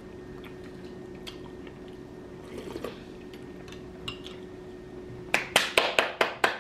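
Quiet eating sounds, a spoon and chewing, with faint scattered clicks over a steady low hum. A little over five seconds in, hands start clapping quickly, about five claps a second, and this is the loudest sound.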